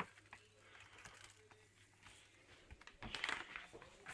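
Faint crinkling of an empty plastic grain bag being handled, with small scattered clicks and knocks that get busier about three seconds in.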